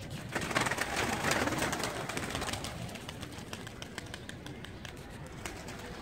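Tippler pigeons cooing in their loft, with many sharp clicks and scuffs; the sound is loudest in the first couple of seconds.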